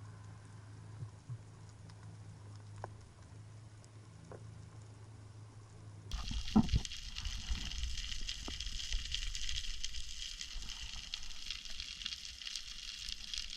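Underwater ambience picked up by an action camera in its waterproof housing: faint crackling over a low hum, then about six seconds in an abrupt jump to a louder, dense crackling hiss, with a couple of low thumps just after the change.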